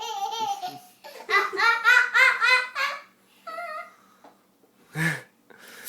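A young child's high-pitched giggling laugh in quick rhythmic pulses, fading out after about three seconds, with a short sharp burst of noise near the end.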